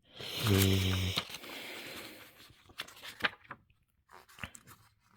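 Plastic packaging tearing and crinkling as it is pulled open, strongest in the first two seconds, with a short hummed voice sound near the start. A few light clicks and taps follow, fading out towards the end.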